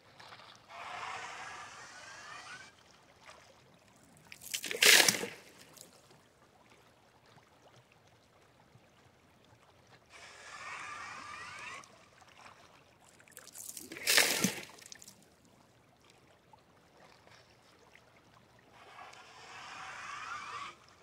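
Hand-pumped PVC suction tube drawing water and gravel from a shallow streambed: three slurping, gurgling gulps of about two seconds each, with two short, much louder splashes of water between them.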